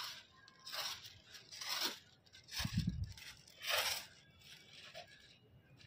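Kite string rasping as it is tugged and pulled in by hand, a short scraping hiss about once a second, with a dull low thump about halfway through.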